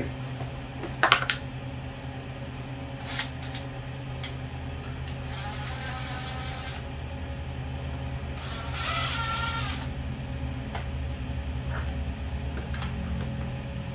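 Cordless drill running in two short spurts, about five and eight and a half seconds in, as it drives the bolts of a dirt bike's chain guard; the second spurt is the louder. A sharp knock about a second in, and a steady low hum underneath.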